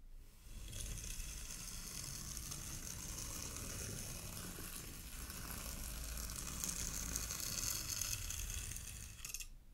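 Multi-tined rake dragged through fine sand: a steady grainy scraping hiss that starts about half a second in and stops suddenly near the end.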